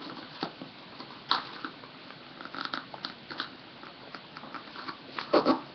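A sheet of paper being folded and creased by hand: scattered crinkles and rustles, with a sharper crackle just over a second in and the loudest crinkling near the end.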